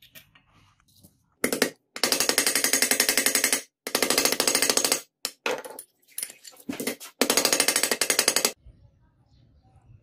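Rapid rattling strokes from hand work on a small steel padlock, in several bursts of one to two seconds each.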